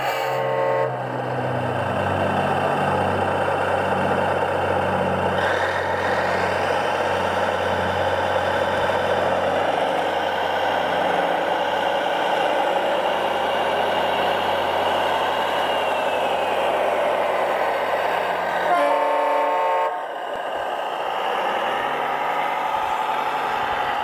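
Steady vehicle noise from model construction machines, with a horn-like tone near the start and again about 19 seconds in.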